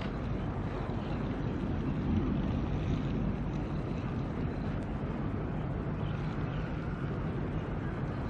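Steady low rumble with wind noise on the microphone, even throughout.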